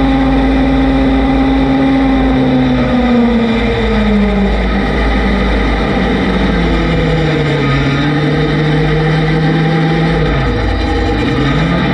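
Vehicle engine running steadily, its pitch easing down about three to four seconds in, holding lower, then dipping briefly and climbing back near the end, with a low rumble underneath.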